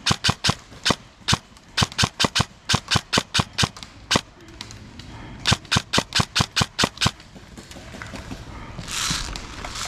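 Airsoft guns firing strings of sharp cracks in several volleys, up to about five shots a second. A short rush of noise about nine seconds in.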